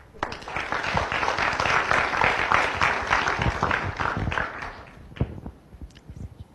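Audience applauding. The clapping swells within the first second, holds for about four seconds, then fades out into a few last scattered claps.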